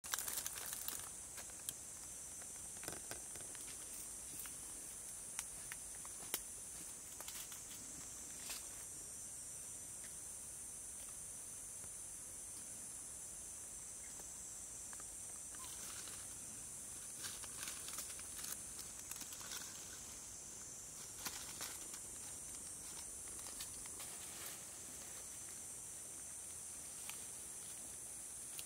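A steady high-pitched insect chorus that swells and eases now and then, with scattered short rustles and clicks.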